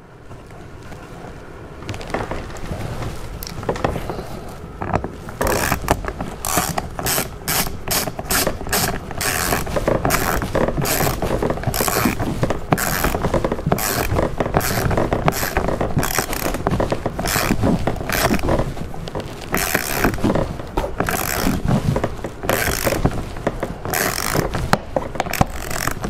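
Hand ratchet with a small socket clicking in quick, uneven strokes as it drives long screws into a plastic door panel. The clicks start about five seconds in, several a second, after a few seconds of soft scraping.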